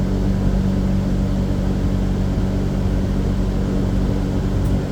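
AAON rooftop HVAC unit running in cooling: a steady mechanical hum with strong low tones that does not change.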